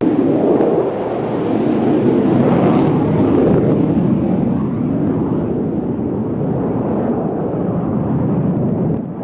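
Twin-engine jet fighter flying a display pass with both afterburners lit: a loud, steady jet-engine roar.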